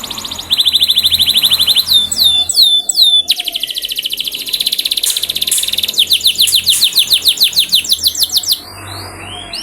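Domestic canary singing: fast trills of rapidly repeated high notes, broken by runs of quick downward-sweeping whistles. This is a lure song, used to get other canaries to start singing.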